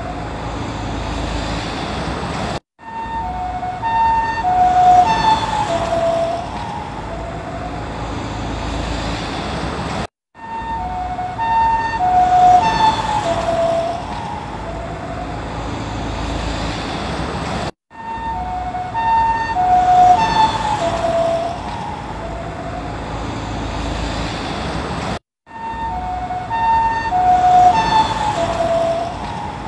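Japanese ambulance two-tone "pee-paw" siren passing by, getting louder and then fading as its pitch drops with the Doppler effect. The same pass repeats about every seven and a half seconds, each separated by a short gap of silence.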